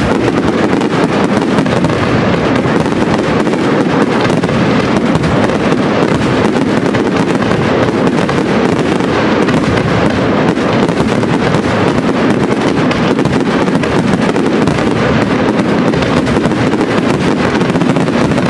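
Large aerial fireworks display in a dense barrage: shells bursting so close together that the bangs run into one continuous, unbroken noise.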